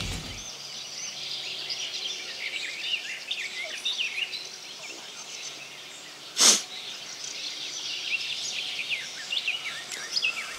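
Small birds chirping and singing continuously, many short calls overlapping. About six and a half seconds in comes one short, sharp burst of noise, louder than the birds.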